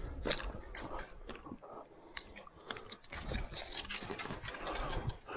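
Boots and hands scraping and crunching on rock and loose stones while scrambling up a steep rocky slope: irregular clicks and scrapes.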